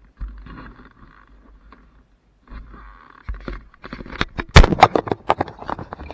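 Handling noise on a GoPro action camera: muffled rubbing and scraping against the housing, then a quick, loud run of sharp knocks and clicks from about the middle on, as the camera is moved and straightened.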